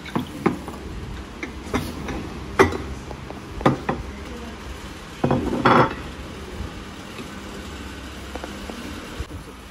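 Plates and cutlery clinking and clattering on a table: scattered sharp knocks, with a longer clatter about five and a half seconds in, over a low steady background hum.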